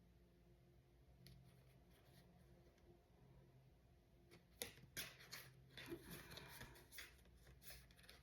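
Faint handling of tarot cards: a run of soft clicks and rustles starting about halfway through and lasting a few seconds, over a low steady hum.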